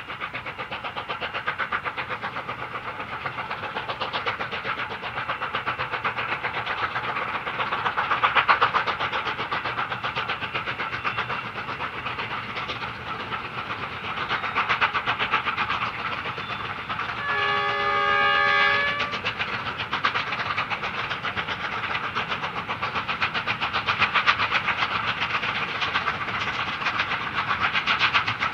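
Two QJ-class 2-10-2 steam locomotives double-heading a train, their exhaust beats chuffing rapidly and steadily. About two-thirds of the way through, a locomotive whistle sounds once for about two seconds.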